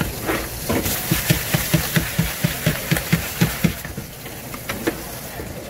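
A knife chopping on a cutting board during fish cleaning, in a quick, even run of about a dozen knocks at about four a second that stops a little before the end.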